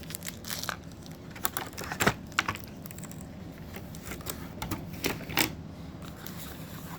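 Hard plastic clicks and knocks from a handheld two-way radio's battery pack and accessories being handled and unpacked. The clicks are scattered and irregular, the sharpest about two seconds in and again about five seconds in.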